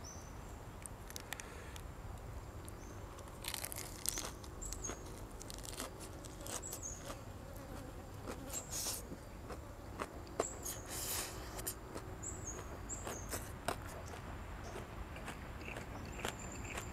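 Quiet eating sounds: chewing and mouth smacking with scattered sharp clicks and a few louder, crunchy bursts.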